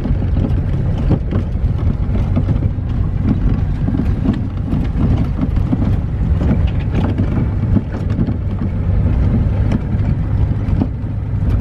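Pickup truck driving on a gravel road: a steady engine and road rumble with frequent small clicks and knocks.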